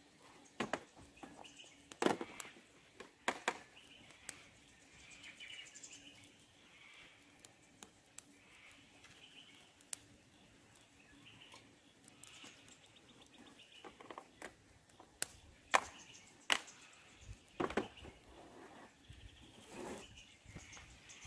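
Birds chirping in the background, with scattered sharp clicks and knocks, a few of them loud.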